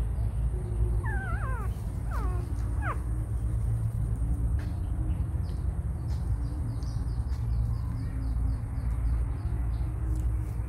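Three short, high, wavering squeals from a young animal, about one to three seconds in, over a steady low rumble.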